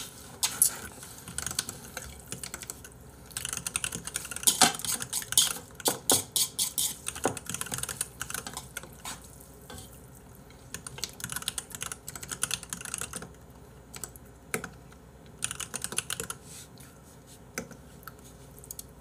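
Typing on a computer keyboard: irregular runs of quick keystroke clicks with short pauses between them, as a new stream title is keyed in.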